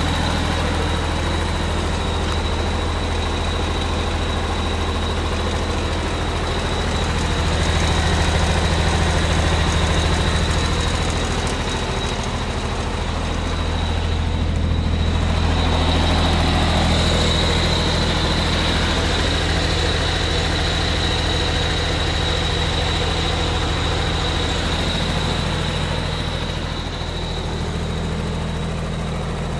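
Vögele Super-Boy asphalt paver's diesel engine running steadily, with a thin high whine over the low engine hum; the sound swells louder twice, about eight and sixteen seconds in.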